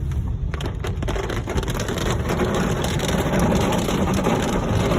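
Rain falling on a moving car, heard from inside: a few sharp drops near the start, then a steady hiss that builds after about half a second, over the low rumble of the car on the road.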